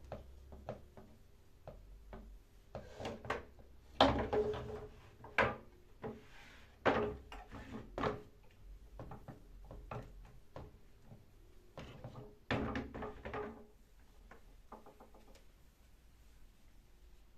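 Household handling sounds: irregular knocks and clatter of objects being set down and moved, with a few louder thuds about four to eight seconds in and a short run of rattling clatter near the end.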